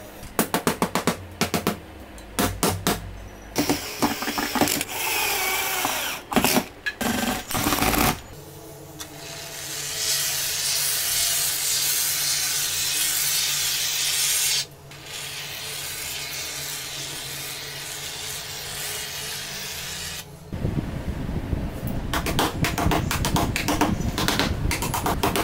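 Workshop build sounds in several takes: quick knocks and taps, then a loud steady hiss for a few seconds midway. Near the end comes a run of rapid hammer blows, driving small nails into a board panel.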